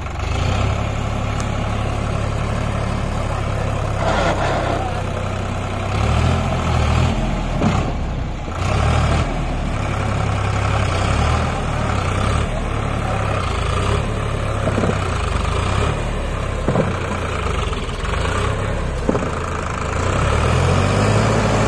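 Tractor's diesel engine running steadily, its note swelling and falling back several times as it is worked harder.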